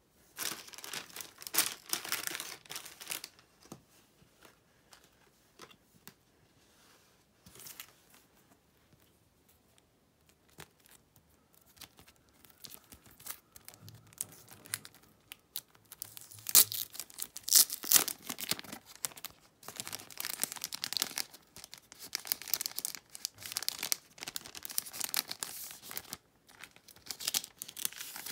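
Thin plastic and paper packaging crinkling and tearing as it is unwrapped by hand. There is a burst at the start, then sparser rustling, then dense crinkling for most of the second half.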